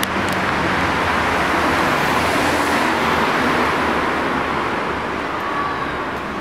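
Steady hiss of city road traffic, easing off slightly near the end.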